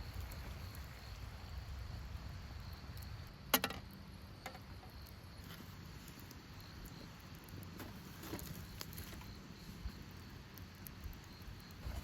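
Crickets chirping steadily in a high faint tone over a low rumble of outdoor ambience, with one sharp click about three and a half seconds in and a few softer ticks later.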